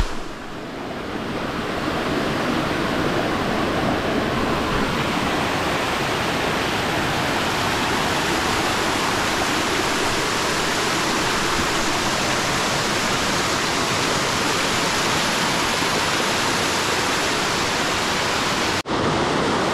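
Waterfall: a steady, dense rush of falling water. It swells in over the first couple of seconds and breaks off for an instant near the end.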